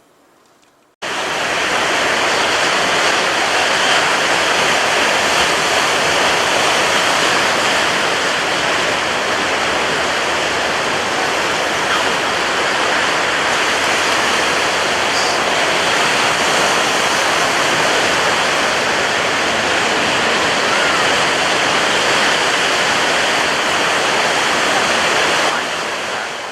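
Steady rushing of water, starting suddenly about a second in and fading out near the end.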